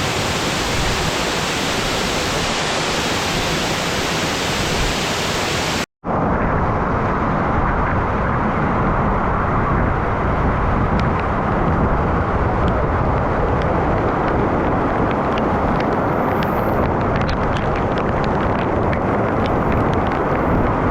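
Steady rush of falling water from a waterfall. It breaks off abruptly about six seconds in, then resumes duller and deeper, with faint small ticks and splashes in the later part.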